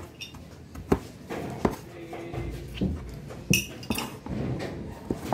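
A metal spoon clinking against a cup as a small child stirs and spoons from it: about half a dozen short, sharp clinks at irregular intervals.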